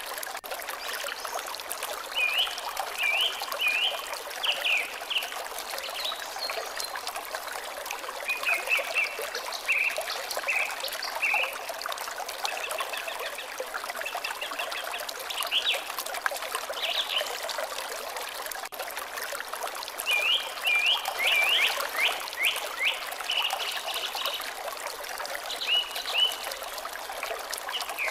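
Water trickling steadily, with a bird singing short bursts of quick high chirps several times over it.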